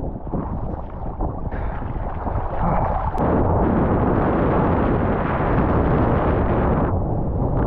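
Wind buffeting the microphone: a loud, continuous rumbling rush that swells and eases, with one sharp click about three seconds in.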